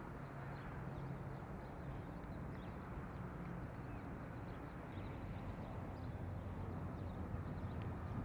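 Steady outdoor background noise with a low hum that drops in pitch about halfway through, and scattered faint short high chirps.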